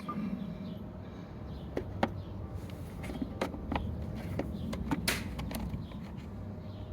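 Scattered light plastic clicks and knocks as a new engine air filter is handled and pressed into the car's plastic airbox, with one sharper knock about five seconds in.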